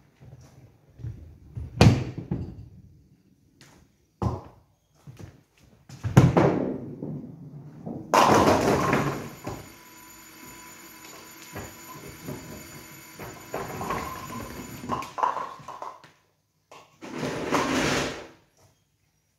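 Nine-pin bowling throw: knocks and a thud with a rolling rumble as the ball goes down the lane, then the pins crash about eight seconds in. The automatic pinsetter's machinery then runs with a steady whirr for several seconds while the pins are reset, and the ball rumbles back along the return track near the end.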